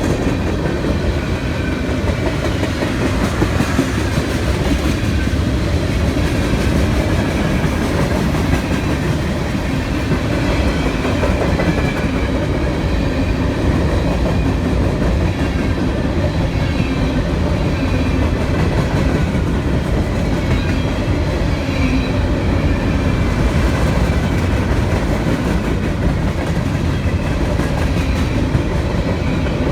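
CSX manifest freight train's cars rolling past, steel wheels clattering on the rails in a steady, loud run of noise.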